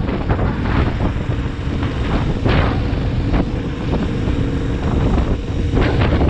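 Wind buffeting the microphone in loud, gusty rumbles, with a faint steady hum underneath.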